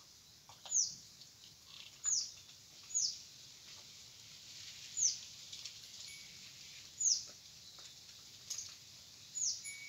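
A small bird calling repeatedly: six short, high notes, each falling in pitch, spaced one to two seconds apart, over a faint hiss.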